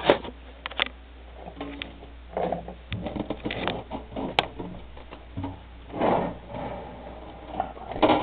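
Handling noise as a heavy valve radio receiver, a National NC-183D, is turned over on a workbench: a run of irregular knocks and clunks with scraping and rubbing in between.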